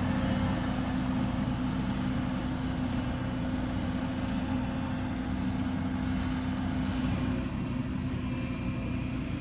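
Heavy diesel earthmoving machinery running, a steady engine drone that holds level throughout.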